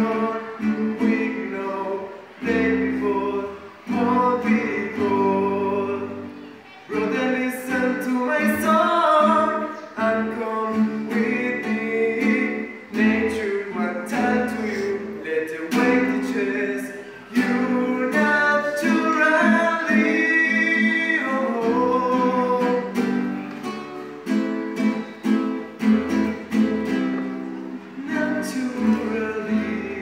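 Acoustic guitar being plucked and strummed as accompaniment while a man sings along.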